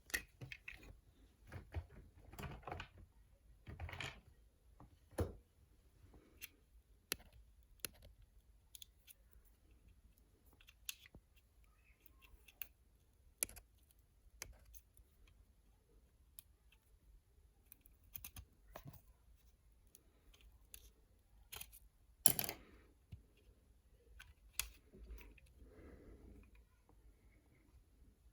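Scattered clicks, snaps and short plastic rustles from hands handling a plastic toy figure and its packaging, with one sharper snap a little over 22 seconds in.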